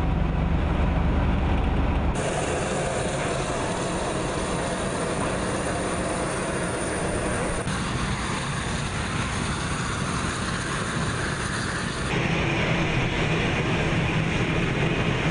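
Steady engine noise from heavy military vehicles. A deep low rumble in the first couple of seconds gives way, at abrupt edits, to a broader steady vehicle noise.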